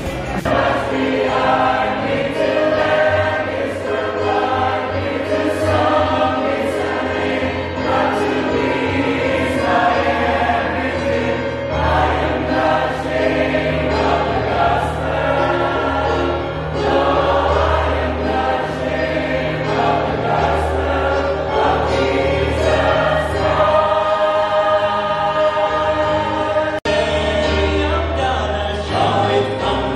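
A church choir singing a gospel song with instrumental accompaniment and a steady bass line. The sound drops out for an instant near the end.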